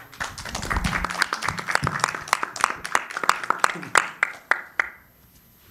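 Audience applauding; the clapping thins to a few separate claps and dies away about five seconds in.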